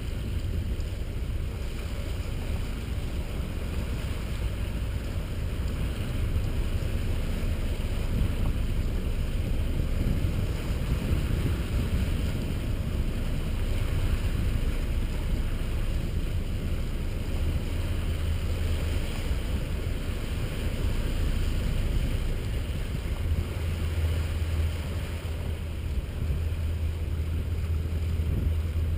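Steady low rumble of a motor cruiser's engines as the boat moves slowly ahead, with wind noise on the bow microphone over it. The low rumble swells a little twice in the second half.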